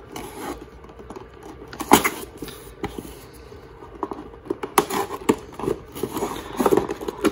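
Folding knife scraping along the seams of a cardboard box as it is slit open, with scratchy rustling of cardboard and a sharp click about two seconds in. There is more busy scraping and handling near the end as the flaps are pried apart.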